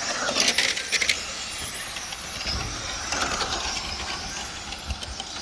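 1/10 scale electric RC touring cars with 17.5-turn brushless motors lapping the track, a thin high motor whine over a steady hiss. Two short bursts of clattering come about half a second and a second in.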